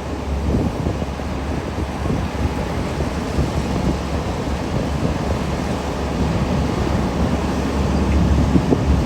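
Diesel engines of a Komatsu PC800 mining excavator and HD465 haul trucks running in a steady low rumble that grows louder near the end, with wind on the microphone.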